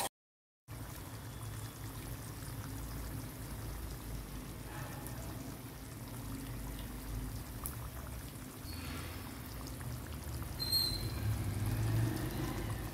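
Thick curry gravy simmering and bubbling in a steel pan over a low steady hum.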